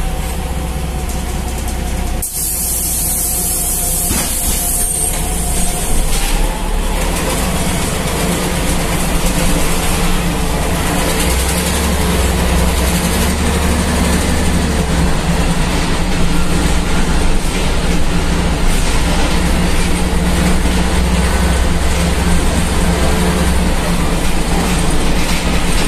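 Ikarbus IK-103 city bus running, heard inside the passenger cabin: a steady diesel engine drone with road noise and interior rattles. A short hiss comes about two seconds in, and the engine works harder through the middle stretch.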